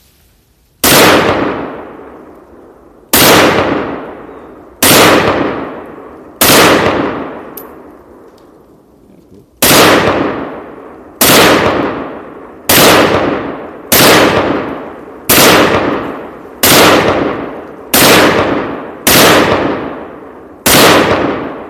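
Chinese-made SKS semi-automatic rifle firing 7.62×39 mm rounds one at a time: thirteen loud shots a second or two apart, with a longer gap of about three seconds after the fourth. Each shot rings out and dies away over a second or so.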